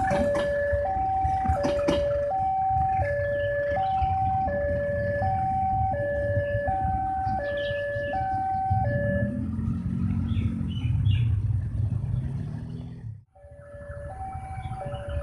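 Railway level-crossing warning alarm sounding two alternating tones, high then low, each lasting under a second, over a low rumble. The alarm stops about nine seconds in and a deep engine rumble swells. After a sudden break near the end, the two-tone alarm starts again.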